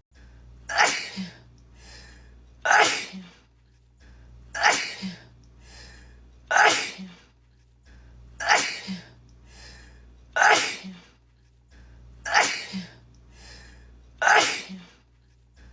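A woman sneezing, the same sneeze looped over and over: eight sharp sneezes about two seconds apart, each followed by a smaller catch of breath, over a low background hum.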